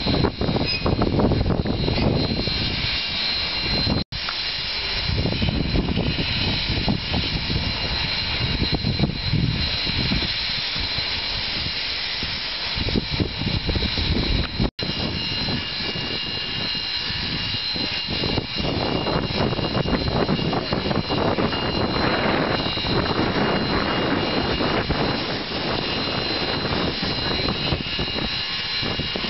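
Steam locomotive standing and backing slowly: a steady hiss of escaping steam over a low rumble, with a faint high steady tone. The sound cuts out for an instant about 4 seconds in and again around halfway.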